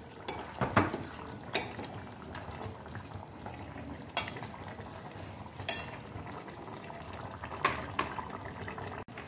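Steel spoon stirring a simmering curry in a stainless steel pot, with a few sharp, irregularly spaced clinks of spoon on pot over a steady low bubbling hiss.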